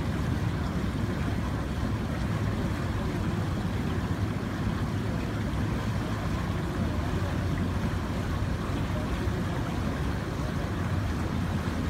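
Steady outdoor ambience: an even low rumble with a fainter hiss like moving water, and no single event standing out.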